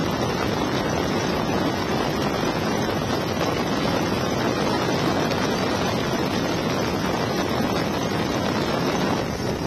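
Steady rushing noise of a helicopter in flight, its engine and rotor mixed with wind buffeting the microphone. It eases slightly near the end.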